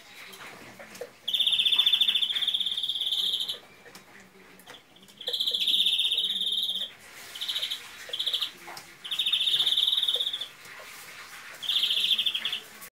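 European greenfinch singing: a run of buzzing, rapidly rattling trill phrases, each one to two seconds long, with short pauses between them and two brief bursts in the middle. The song is rated as faulty, with bad transitions between its phrases.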